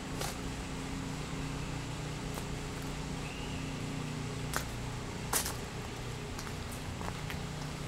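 A steady low mechanical hum with a few sharp, irregular snaps and clicks, the loudest two about four and a half and five and a half seconds in, as of twigs and storm debris underfoot.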